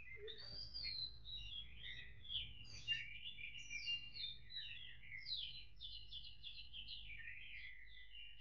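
Many small birds chirping and twittering at once, with quick overlapping calls, over a faint steady hum.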